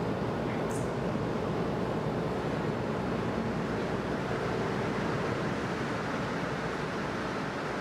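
Steady rushing hum of a metro station with a train standing at the platform, doors open, easing off slightly near the end. A brief high hiss sounds under a second in.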